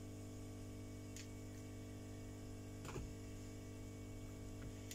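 Steady, faint electrical mains hum, with a few light clicks of small phone parts being handled, the loudest about three seconds in.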